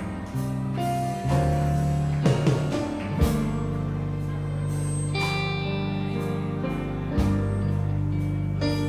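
Live worship band music: electric guitar playing over long held low notes and chords.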